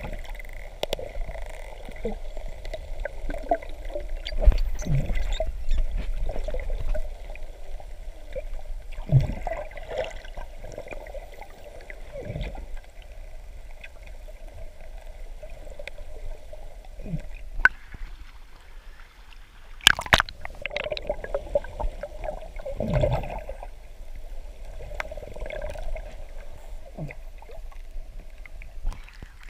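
Muffled underwater sound picked up by a camera held below the surface: a low wash of water with gurgles that swell and fade, and scattered dull knocks, the sharpest about twenty seconds in.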